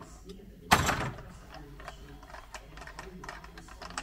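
Hand tools clicking and knocking as they are handled, with one loud scrape or clatter about three-quarters of a second in.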